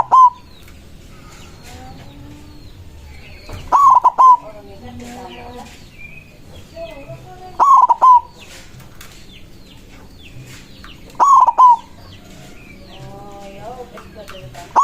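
White zebra dove (perkutut) singing its short cooing phrase, loud and repeated about every three and a half to four seconds, with fainter bird calls in between.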